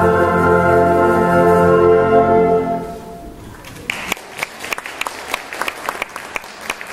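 A concert band holds a chord, which is cut off a little under three seconds in and rings away in the church. About a second later the audience begins to applaud.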